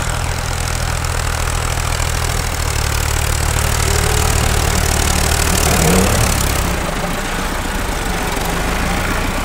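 Massey Ferguson 385 tractor's four-cylinder diesel engine working hard under load, pulling a sand-laden trolley stuck in soft sand. It gets louder over a few seconds, then eases off about seven seconds in.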